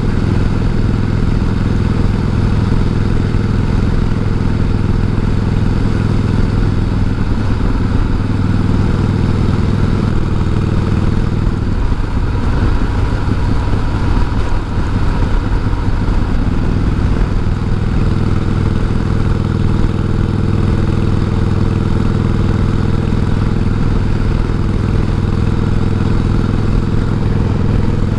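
1988 Harley-Davidson Heritage Softail's 1340 cc Evolution V-twin running steadily while the bike and sidecar are under way. About halfway through, the engine note briefly wavers and shifts as the speed changes.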